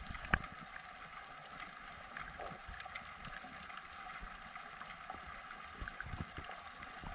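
Underwater ambience picked up by a submerged camera: a steady hiss with scattered faint clicks and crackles, and one sharp click about a third of a second in.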